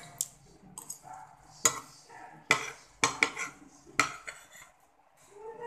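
Metal spoon clinking and scraping against a plate while scooping rice, about six sharp clinks over the first four seconds.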